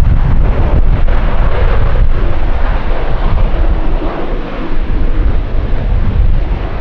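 Jet airliner engines running loud and steady as the plane passes close by, with wind buffeting the microphone.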